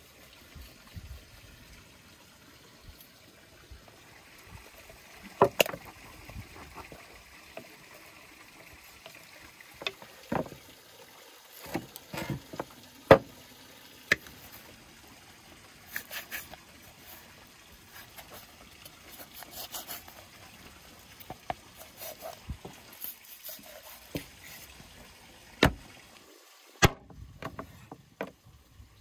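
Raw chicken being cut apart with a knife and cleaver on a wooden cutting board: a few sharp knocks of the blade striking the board as joints are chopped through, with quieter cutting and crackling strokes between them.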